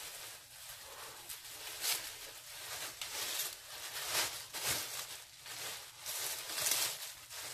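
Plastic oven bag crinkling and rustling in irregular crackles as hands pull it open.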